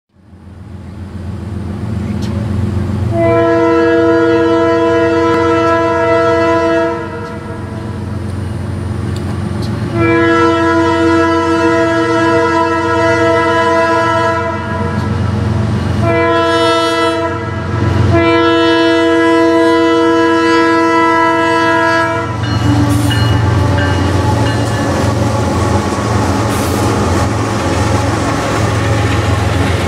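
CSX freight train blowing its horn for a grade crossing in the standard long, long, short, long pattern, over the low rumble of the locomotives. After the last blast, near the end, the cars roll past with a steady rattle of wheels on rail.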